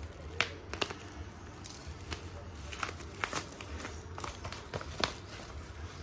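Small scissors snipping through a kraft paper padded mailer: a string of sharp, separate cuts, with the envelope's paper crinkling in the hands between them.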